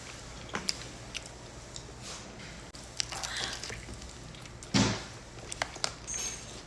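A person chewing and biting food close to the microphone, with small wet clicks and one louder bite about five seconds in.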